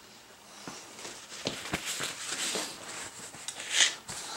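Paper shop towel rustling as it is handled and spread over a steel table, with scattered light taps and clicks. One louder rustle comes near the end.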